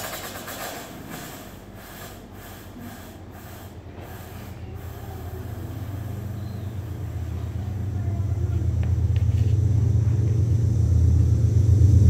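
A low rumble that swells steadily louder, after a sudden start with a few seconds of fluttering, crackly hiss.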